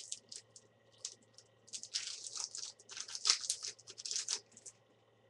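Foil trading-card booster pack crinkling and being torn open: a quick run of crackles, heaviest in a burst from about two seconds in to past four seconds, then stopping.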